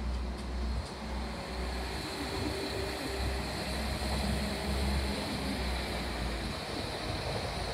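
Transport for Wales CAF Class 197 diesel multiple unit running at a platform, a steady low rumble with faint humming tones. Wind is buffeting the microphone.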